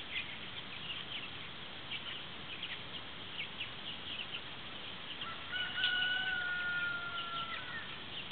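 Free-range meat chickens peeping and chirping with many short, high calls. About five seconds in, a rooster gives one long crow that falls slightly in pitch and lasts a little over two seconds.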